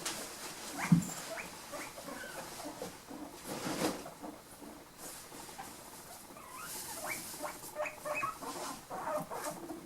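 Male guinea pig "talking to himself": a run of short squeaks, coming in two bunches, one near the start and a longer one in the second half. A single thump about a second in is the loudest sound, and there is a brief rustle just before the middle.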